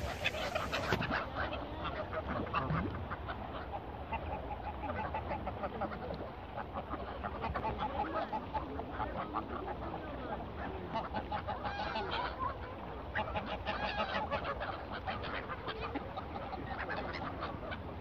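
A flock of greylag geese honking, with many short calls overlapping throughout, in a mixed waterbird flock with gulls and ducks.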